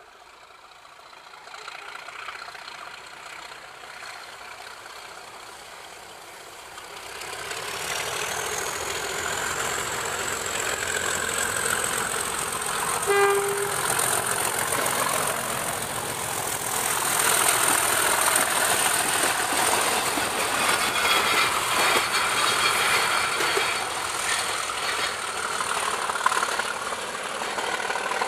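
Class 37 diesel-electric locomotive approaching and passing close by, its engine noise building from faint to loud along with a high whistle that rises in pitch and then holds. It gives one short horn note about halfway through.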